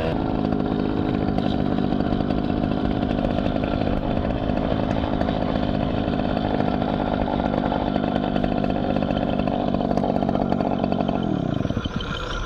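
Riga moped's small two-stroke engine revving up and running steadily at riding speed, then falling away as the throttle is closed about a second before the end. Birds chirp faintly as the engine drops off.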